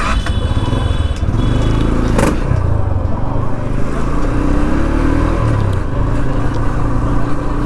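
Motorcycle engine running as the bike rides slowly along a street, its pitch rising and falling a little as the throttle changes, with road noise under it.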